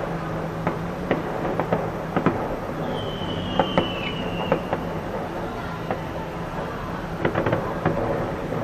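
Fireworks bursting in an irregular series of sharp bangs and pops over a steady background rumble. About three seconds in, a high whistle falls slightly in pitch and lasts about a second.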